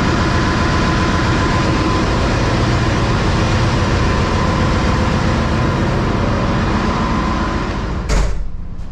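Loud, steady roar of a ship's engine room machinery with a steady whine over it. Near the end a heavy door thuds shut and the roar drops sharply.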